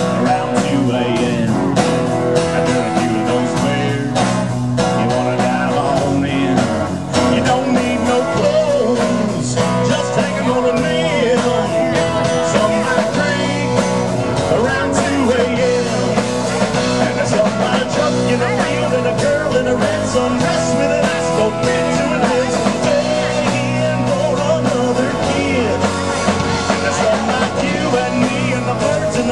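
A band playing a country-rock song, with a steady drum beat and guitar.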